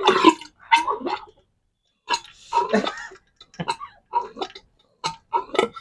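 Oil gurgling and squelching in short, irregular spurts from an opened electric-scooter front shock absorber (fork) as it is worked or drained.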